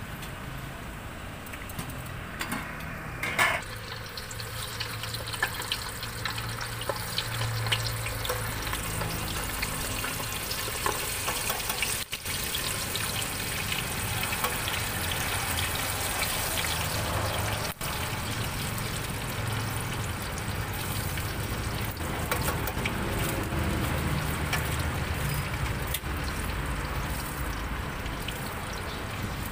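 Skewered meatballs and sausages deep-frying in a large steel pot of hot oil: a steady sizzle and bubbling full of small crackles, stirred with metal tongs. It grows louder after the first few seconds.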